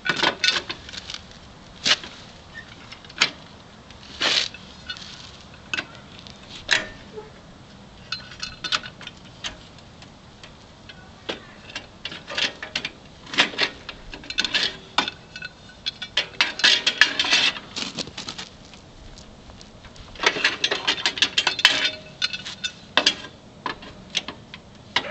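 Scattered metal clanks and clinks of a length of angle iron being worked against the plow's steel mount to pry a catching piece outward, with two denser runs of rapid clattering, one in the middle and one near the end.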